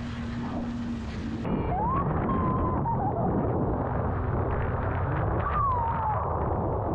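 Yamaha VX WaveRunner jet ski running at speed, with wind and water spray rushing over the mic; about a second and a half in, the noise grows louder. Twice over it a rider's high voice gives a long rising-and-falling whoop.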